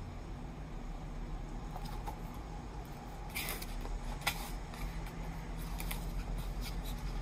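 Pages of a hardcover picture book being handled and turned: a few paper rustles and crinkly clicks in the second half, over a low steady hum.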